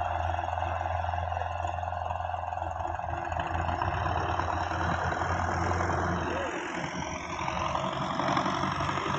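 Belarus 510 tractor's diesel engine running steadily under load as it pulls a fully loaded sugarcane trolley. About six and a half seconds in, the engine sound changes abruptly as the low hum drops away.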